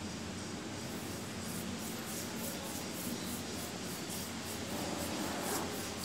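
Paintbrush loaded with sky-blue paint being brushed back and forth across paper: soft, quick, repeated scratchy strokes, several a second, starting about a second and a half in, over a steady hiss.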